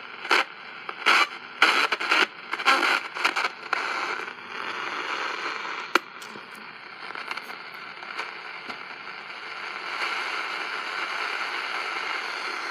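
Shortwave reception from a QFX R-9 portable radio's speaker. For the first few seconds it gives choppy bursts of signal and crackle, then settles into steady static hiss, with a sharp click about six seconds in. It is poor reception, with what the owner takes for AM or FM bleed onto the shortwave bands.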